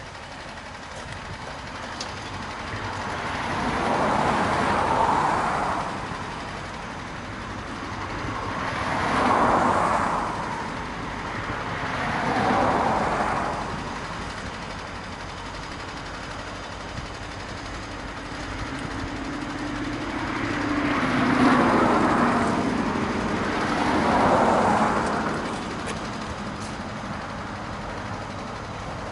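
A train approaching from far down the line: a low steady hum comes in over the last ten seconds as it draws nearer. Several broad swells of sound, each about two seconds long, rise and fade, and they are the loudest thing heard.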